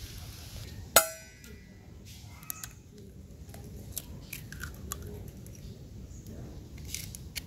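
An egg cracked sharply against the rim of a bowl about a second in, the bowl ringing briefly, followed by a few faint clicks and taps of shell against the bowl.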